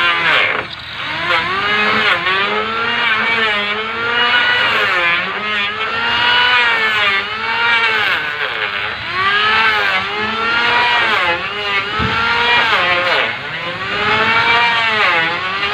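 Electric hand planer shaving a wooden plank in repeated passes: the motor's whine dips in pitch as the blades bite into the wood and rises again between strokes, roughly once a second.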